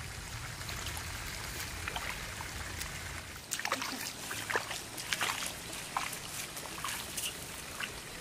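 Steady outdoor hiss, then from about three and a half seconds in, a run of irregular watery splashes and sloshes from footsteps wading through the shallow water and mud of a rice paddy.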